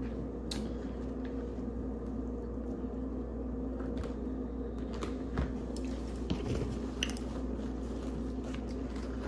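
Steady low hum with a few faint, scattered clicks and rustles as food and table items are handled, without eating.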